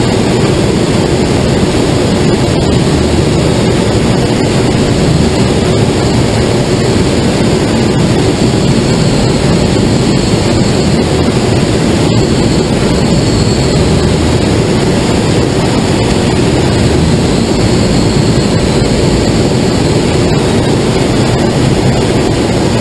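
Steady loud rush of air streaming over a glider's canopy and fuselage in flight, an even noise with no change in it.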